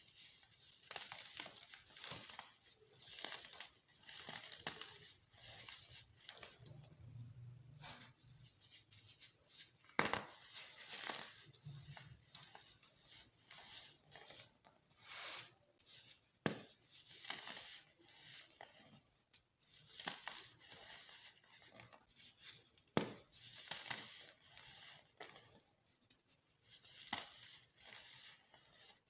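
Baking soda being crushed: repeated gritty crunching and crumbling, with a few sharper cracks among the crunches.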